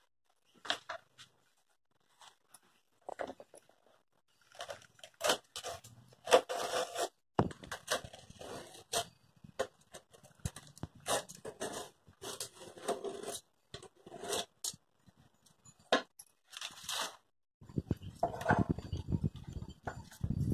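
Fresh banana leaves rustling and crinkling in irregular short bursts as they are handled and torn, with a longer stretch of scraping near the end.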